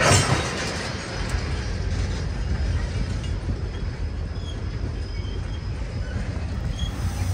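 Freight train of tank cars rolling past: a steady low rumble of steel wheels on the rails, with a short burst of noise right at the start.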